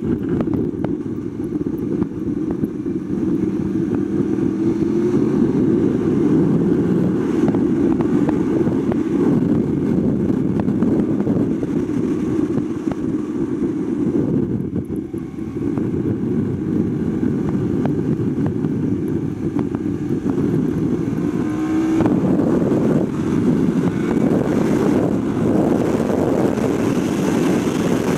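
Yamaha R1 sportbike at track speed, heard onboard with heavy wind rush over the microphone. The engine eases off briefly about halfway through in a corner, then pulls hard again, rising in pitch, onto the straight.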